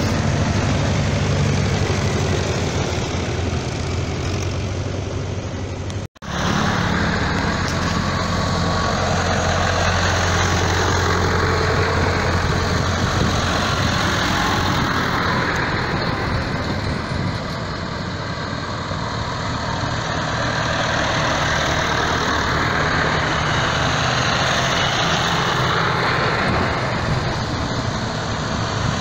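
Vintage tractor engines running as a procession of old tractors drives past, a steady low engine drone that stays loud throughout. The sound breaks off briefly about six seconds in.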